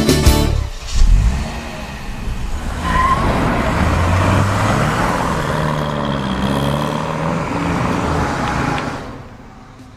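Car engine running and revving, its pitch rising and falling, for about eight seconds, then fading away near the end. The end of a band's song is heard just before it.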